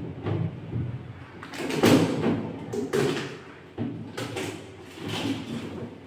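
Plastic crisper drawer of a refrigerator being slid out and packing pieces lifted from it: a series of irregular plastic scrapes and knocks.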